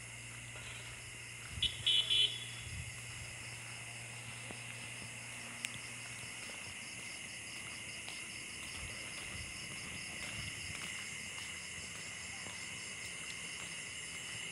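Steady chorus of crickets and other night insects chirring. About two seconds in, a vehicle horn sounds three quick beeps, the loudest thing heard. A low hum stops about six seconds in.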